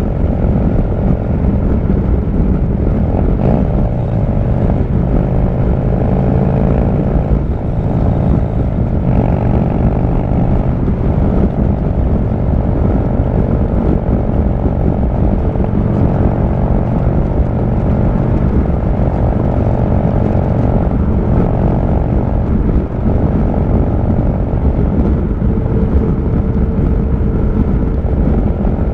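Harley-Davidson V-twin motorcycle engine running at road speed, heard from the rider's seat with a rush of wind on the microphone. The engine note rises and dips several times as the throttle changes.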